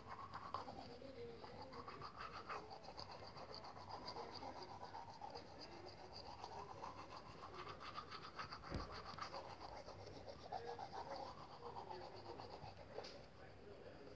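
Faint bird calls in the background, with a single thump a little past halfway.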